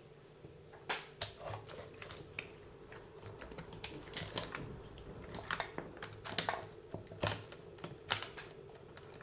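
Irregular clicks and taps of small tools and plastic and metal parts being handled while a WLToys 144001 RC car's rear end is taken apart, with three sharper knocks in the second half.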